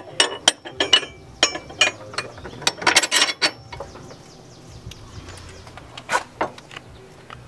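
Hand ratchet wrench clicking in short, irregular runs as a bolt on a suspension arm is worked. It is busiest about three seconds in, then goes quiet apart from two clicks near the end.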